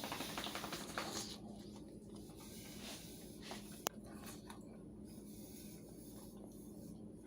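Fork scraping across a plate of air-fried chicken in the first second or so, then a single sharp click of the fork against the plate about four seconds in, over a faint steady hum.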